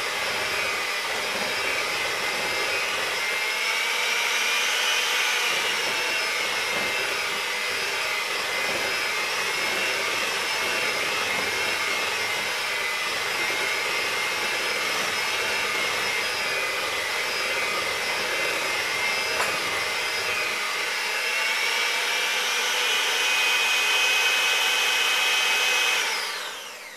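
Electric hand mixer running steadily, its beaters whipping a thick sugar-and-egg filling toward stiff peaks in a glass bowl. The motor whine wavers slightly in pitch, then winds down and stops near the end.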